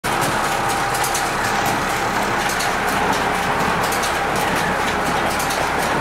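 International 445 conventional square baler running on a tractor's PTO drive: a steady mechanical run with a continuous fine clatter.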